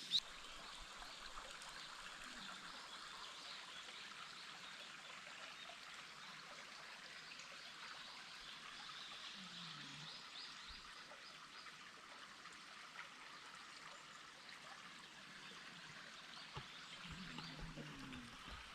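Faint steady rush of flowing stream water, with a few faint distant bird chirps.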